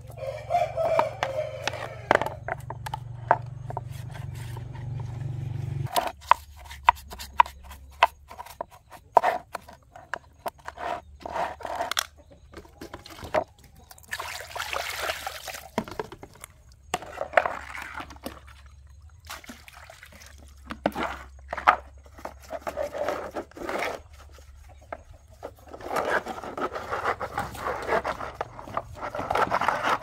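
Hand tools scraping and scrubbing the plastic pulsator and tub ring of a washing machine: scattered sharp taps and clicks, with stretches of rough brushing strokes. A low steady hum underneath stops suddenly about six seconds in.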